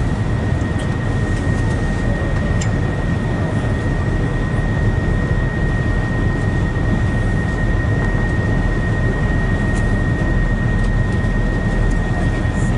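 Steady engine drone heard from on board a moving vehicle, a deep rumble with a constant high whine over it and no change in pace.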